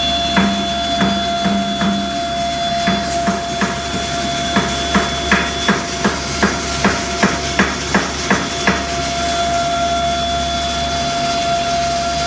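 Super-fine grinding mill running steadily with a hum and a constant whine, while a series of sharp knocks, speeding up to about four a second, rings out over it and stops about nine seconds in.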